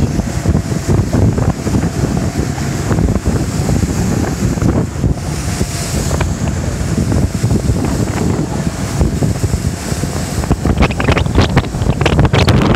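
Wind buffeting the microphone over water rushing past a moving boat, a steady low rumble, with a run of short clattering knocks near the end.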